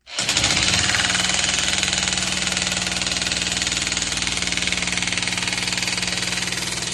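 Electric jackhammer switched on and hammering steadily, a fast even rattle of blows with a steady motor hum. It starts suddenly just after the start and runs on without a break.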